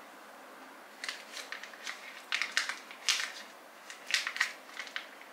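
Small plastic spatula scraping and smearing thick cream face mask, a run of short, crisp, irregular scrapes starting about a second in.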